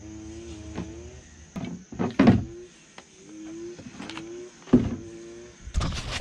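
A small electric power tool's motor whining in short runs of about a second, each starting with a slight bend in pitch, as it cuts a plastic water jug. Two loud knocks come about two seconds in and again near five seconds.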